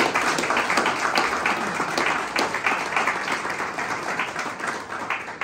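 Audience applauding, many people clapping at once, fading gradually toward the end.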